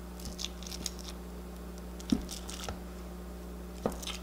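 Wooden spatula pressing and squishing raw ground beef in a stainless steel bowl, with short scratchy squelches and two sharp knocks from the spatula and bowl, one about halfway through and one near the end.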